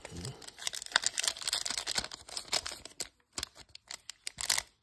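Foil booster-pack wrapper crinkling and rustling in the hands as the stack of trading cards is slid out of it, with a run of small clicks and scrapes.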